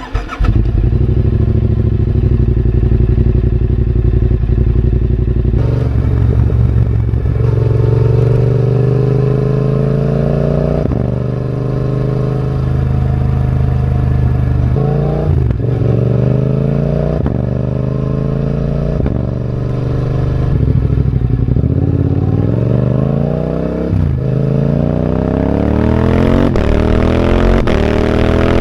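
Yamaha Ténéré 700's parallel-twin engine through a Dominator HP6 full aftermarket exhaust. It runs steadily for about six seconds, then climbs in revs again and again, each climb a few seconds long and ending in a sudden drop. The climbs come quicker near the end.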